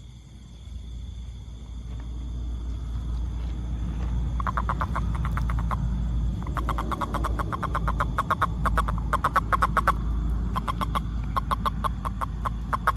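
A frog calling in fast trains of short, evenly spaced pulses, about ten a second, in bouts that start about four seconds in. Under it runs a steady low rumble and a faint steady high tone.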